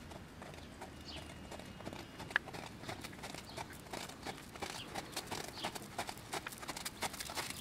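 Hoofbeats of a Trakehner gelding trotting under saddle on gravel arena footing, a steady rhythm of strikes that grows clearer from about three seconds in. A single sharp click a little over two seconds in.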